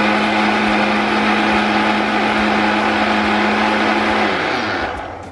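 Electric countertop blender running steadily, blending thick coconut milk with condensed milk. About four seconds in it is switched off and the motor winds down with a falling pitch, stopping near the end.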